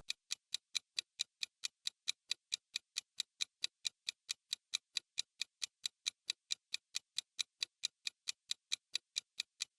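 Clock-tick sound effect used as a quiz countdown timer: sharp, even ticks at about four a second.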